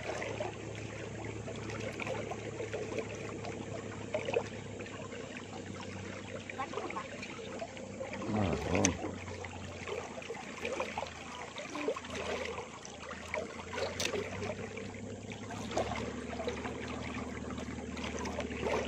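River current swirling and lapping around a small boat's hull, with a faint steady low hum underneath that drops out for several seconds in the middle.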